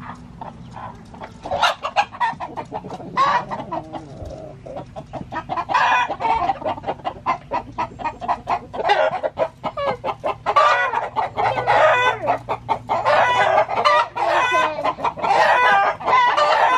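A flock of chickens clucking, the calls growing louder and busier from about halfway through: the excited clucking of startled birds.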